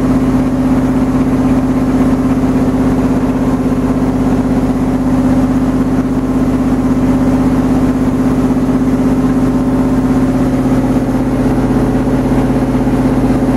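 Khlong Saen Saep canal boat's diesel engine running steadily, a loud low drone that holds one pitch throughout, heard from inside the passenger cabin.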